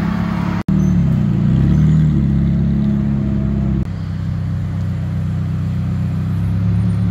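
Ferrari V8 engines running at low revs as the cars roll slowly past, a steady low rumble with small wavers in pitch. There is a sudden cut less than a second in, and about four seconds in the tone changes to the deeper, even rumble of a Ferrari Roma's twin-turbo V8 creeping forward.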